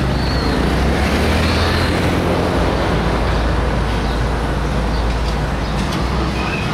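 Street traffic noise with a heavy, steady low rumble. A short high steady tone starts near the end.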